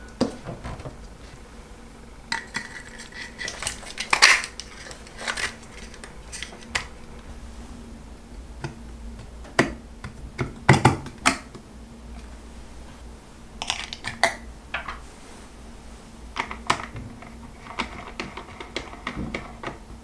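Scattered clicks, clinks and knocks of small metal parts being handled: a servo robot with an aluminium frame set into a wooden box and its metal lid and joystick knob fitted, with a few louder clatters about ten seconds in.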